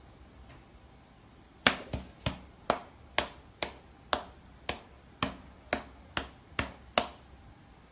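A run of about a dozen sharp taps or knocks, about two a second, starting about two seconds in and stopping shortly before the end.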